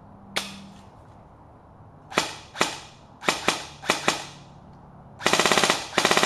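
Echo1 Robinson Armament XCR airsoft electric rifle (AEG) firing: about seven single semi-automatic shots, then two short full-automatic bursts near the end, each a fast, even rattle of the gearbox cycling.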